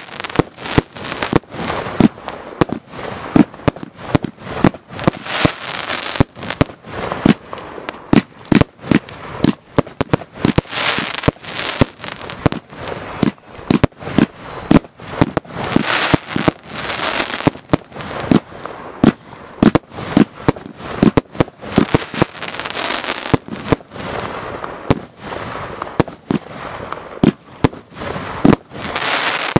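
Fireworks going off at close range: a continuous, irregular barrage of sharp bangs, often several a second, with a hiss between them.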